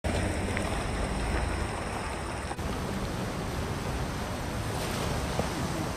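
Steady rushing noise of heavy rain, changing sharply about two and a half seconds in to the rush of water pouring over a dam spillway.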